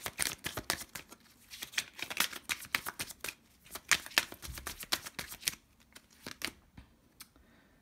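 A tarot deck being shuffled by hand: a rapid run of soft card clicks and slaps that thins out about five and a half seconds in and stops near the end.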